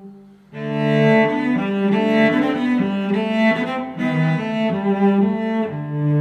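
Background instrumental music: a melody of held notes that change pitch about every half second. It is quiet for the first half second, then comes in louder.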